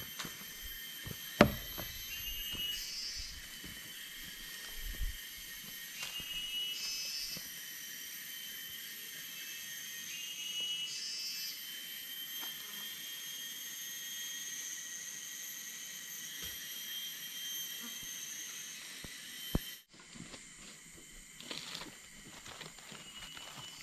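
Tropical forest insect chorus: several steady, high-pitched buzzing tones, with a short rising call repeating about every four seconds. Footsteps and a sharp snap come about a second in, and the chorus drops away abruptly about twenty seconds in.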